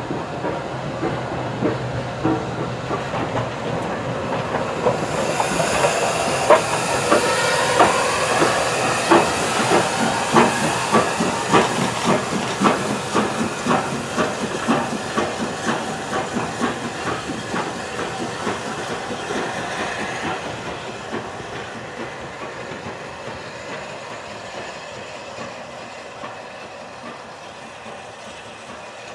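Steam locomotive working away: loud steam hiss with a regular chuffing exhaust beat, swelling about five seconds in, then fading steadily as it draws off.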